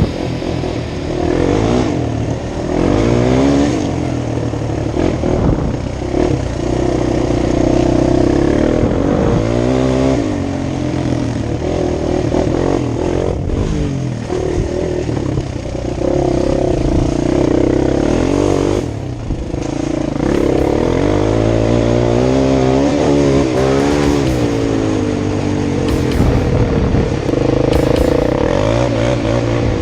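Freshly rebuilt engine running and revving up and down over and over, its pitch rising and falling, with music faintly underneath.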